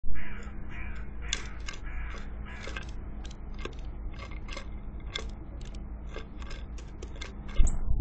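A small bird pecking at seeds on a wooden feeder tray: a run of sharp, uneven taps and cracks, about two or three a second, with some scratching early on. A loud thump comes near the end as the bird leaves the feeder.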